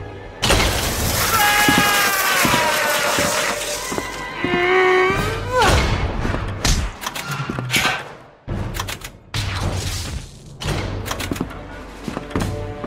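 Animated-film soundtrack of music and sound effects: a loud crash about half a second in, then sliding, wailing cries over the music, then a string of sharp knocks and thuds.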